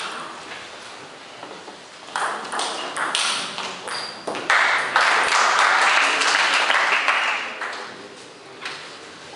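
A table tennis rally: sharp hits of the ball on bats and table, about two a second. About halfway through it gives way to some three seconds of loud clapping and cheering from the spectators as the point ends, and a single ball hit comes near the end.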